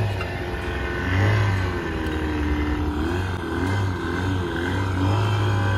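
A fishing boat's engine running, its pitch rising and falling as it manoeuvres to hold the purse seiner in place while the net is hauled in.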